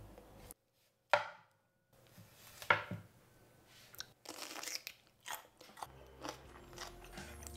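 Kitchen knife slicing through a kimbap roll on a wooden cutting board: several sharp, crunchy cuts through the nori, each ending in a knock of the blade on the board.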